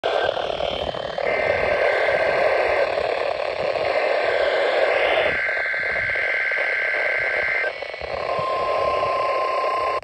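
A Midland NOAA weather radio's speaker plays a Required Weekly Test over hissy reception. First come three warbling bursts of the digital SAME header, then a single steady alert tone starts about eight seconds in.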